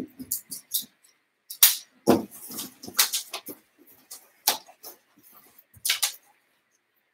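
Plastic rungs of an agility ladder clacking and rattling against each other as it is handled and unfolded, in irregular clicks with a heavier knock about two seconds in.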